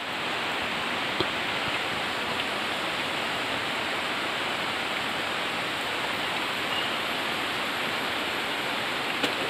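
Steady rain falling on the leaves of the vegetation, an even, unbroken hiss.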